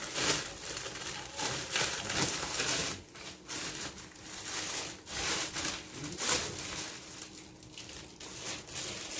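Plastic packaging crinkling and rustling as a bedsheet set is unwrapped and handled by hand, in a run of irregular rustles that grow quieter near the end.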